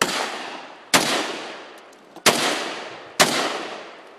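An AK-pattern 7.62 rifle firing four aimed semi-automatic shots about one a second. Each sharp report is followed by a long fading echo.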